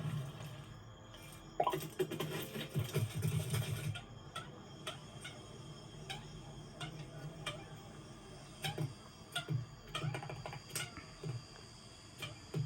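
Animated-film sound effects: scattered light clicks and taps, with a run of low thumps in the first few seconds.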